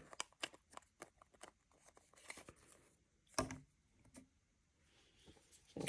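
Faint handling noise from a flashlight and its AAA battery holder being fitted together: a scatter of small clicks and ticks, with one louder knock about three and a half seconds in.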